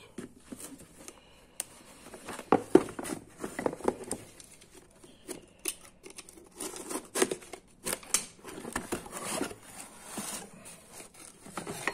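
A cardboard box of brake pads being handled and opened by gloved hands: irregular scraping, rustling and light knocks as the flaps are pulled open and the inner box slides out.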